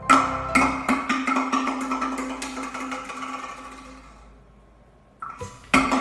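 Background music of plucked and struck notes with light percussion. It fades out about four seconds in and starts again near the end.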